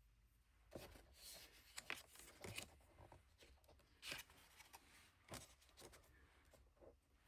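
Faint, scattered rustles and soft clicks of tarot cards being handled and slid apart.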